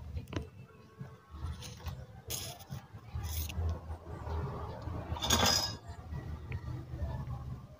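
Light handling noises: a few short scrapes and clinks as a replacement electrolytic capacitor is fitted into a CRT TV's circuit board, the loudest about five and a half seconds in. A steady low hum runs underneath.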